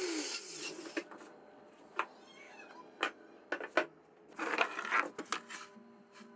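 An angle grinder spinning down after being switched off, its pitch falling away over the first half second. Then scattered light knocks and clatters, about one a second, the loudest a little before the four-second mark.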